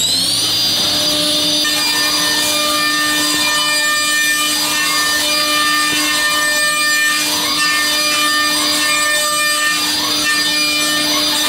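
Mazak HCR-5000 five-axis machining centre spindle whining up to its 18,000 rpm cutting speed in the first half second. Its 32 mm endmill then mills a metal block in simultaneous 5-axis motion: a steady high-pitched whine with several steady tones and a swell about once a second as the cut sweeps around the part.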